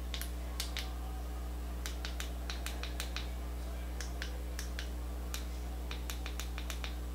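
Repeated small plastic clicks of a ring light's brightness buttons being pressed to step the light up, coming in quicker runs from about two seconds in, over a steady low hum.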